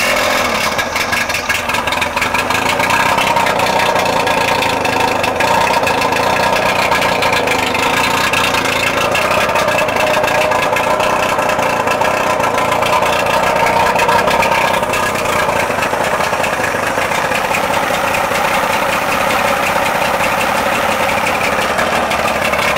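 Mercury outboard motor running steadily with its cowling off, its propeller shaft driving a hydraulic dynamometer for an output test. The engine has just fired up and holds an even speed throughout.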